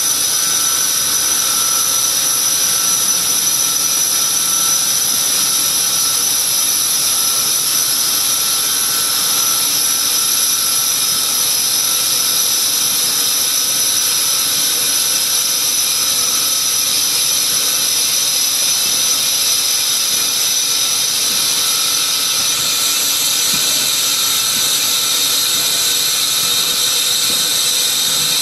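7.5 horsepower CNC lathe facing a 17-4 stainless steel blank under flood coolant: a steady hiss of coolant spray and cutting, with a high, even whine from the sped-up machine sound. The whine's pitch shifts slightly about 22 seconds in.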